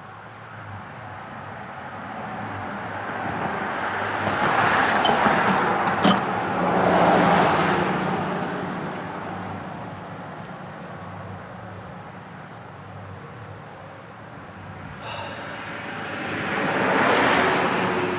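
Two vehicles passing by, each swelling up and fading away over several seconds, with a sharp click about six seconds in.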